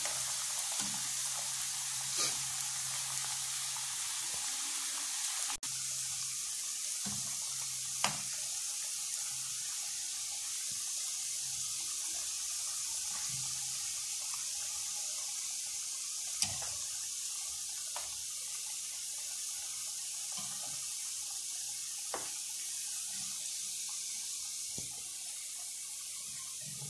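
Breaded corned-beef fries deep-frying in hot oil: a steady sizzling hiss, with a few sharp taps at intervals.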